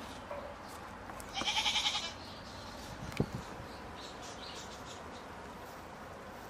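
A goat bleats once, a short quavering call about a second and a half in. A single sharp knock follows about three seconds in.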